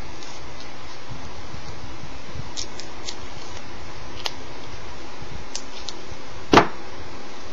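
Steady hiss with a few faint clicks, then one louder, sharp knock a little before the end.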